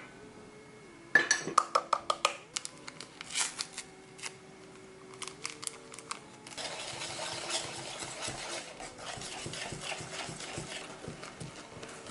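Cake batter being made in a stainless-steel bowl: a quick run of clinks and taps against the metal bowl as flour is tipped in, then from about six and a half seconds in, continuous scraping as the thick flour batter is stirred hard.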